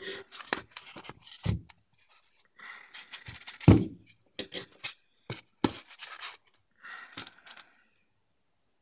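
Hard polystyrene foam packaging scraping and squeaking as a soldering iron and its copper tip are handled and pressed into the foam tray, with a string of clicks and knocks and one louder thump about three and a half seconds in.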